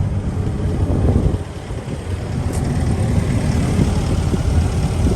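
Kobelco SK140 crawler excavator's diesel engine running steadily at idle, a low rumble with a brief dip about a second and a half in.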